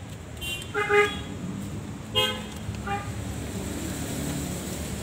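A vehicle horn giving three short honks, the first about a second in and the loudest, over the low hum of passing road traffic.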